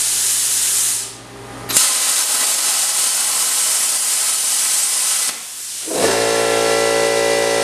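Harbor Freight 62204 plasma cutter cutting quarter-inch steel: a loud, steady hiss of the plasma arc and air. It breaks off for under a second about a second in, starts again, and stops a little after five seconds. About six seconds in a steady machine hum with a high whine takes over.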